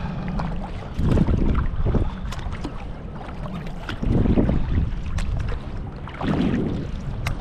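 Water sloshing around a sea kayak at sea, with wind buffeting the microphone; louder surges come about every two to three seconds, and there is a sharp click near the end.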